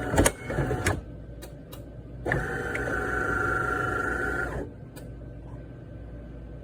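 The De'Longhi ESAM3300 Magnifica super-automatic espresso machine's internal motor whirring with a steady whine. It stops with a couple of clicks, starts again about two seconds in, runs for about two seconds and stops, followed by a single click.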